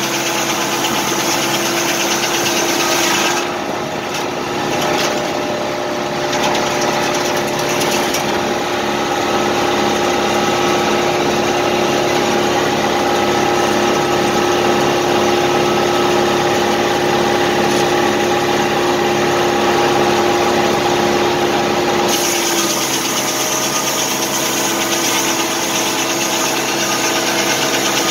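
Tractor engine running steadily close by, its exhaust stack just beside the seat, while the circular sawmill is run on test.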